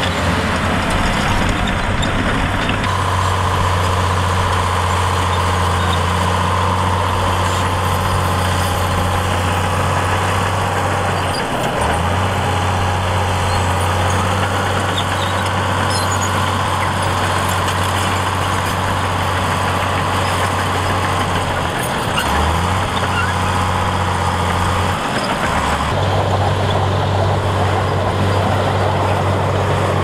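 Komatsu D65P crawler bulldozer's diesel engine running steadily under load as it pushes soil, a loud low drone whose note drops briefly a few times.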